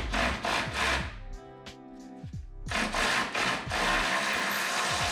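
Ratchet wrench clicking in repeated rasping strokes, about two a second, as an engine crossmember bolt is backed off to lower the cradle. After a short pause the strokes speed up into a continuous rasp. Faint background music underneath.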